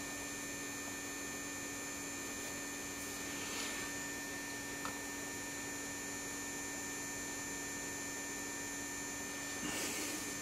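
Steady electrical hum with a thin, high, unchanging whine above it, from the powered-up Keithley 150B microvolt ammeter, whose mechanical chopper can be heard when it runs. Faint rustles of a hand at the bench about three and a half seconds in and near the end.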